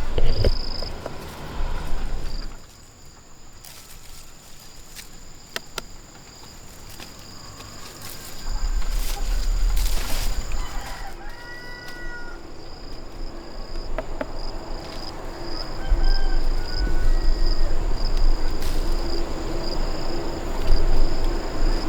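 Farmyard ambience: a steady high-pitched insect drone with a few short chicken calls, scattered sharp clicks, and stretches of low rumble.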